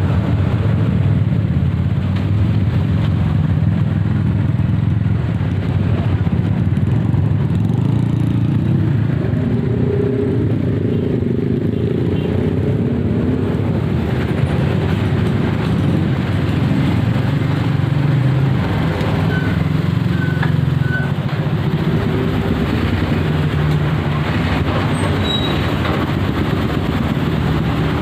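Honda CB motorcycle engine running steadily on the move, with its pitch shifting gently over time.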